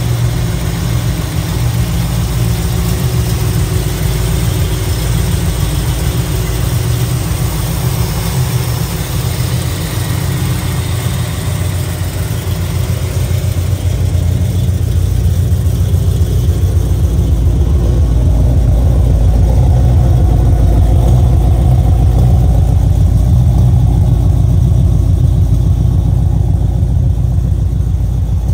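Modified V8 engine of a 1972 Holden HQ Monaro idling steadily. In the second half the idle grows louder and deeper, heard nearer the exhaust outlets at the rear.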